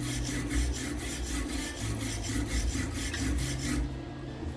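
MIG welder with argon shielding gas laying a bead, the arc crackling steadily like bacon sizzling in a pan over the welder's low hum. The arc stops near the end.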